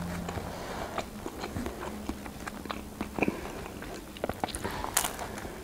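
Close-up mouth sounds of a person chewing pizza, with many small wet clicks and smacks. A bite into a pizza slice near the end gives one louder, sharper sound.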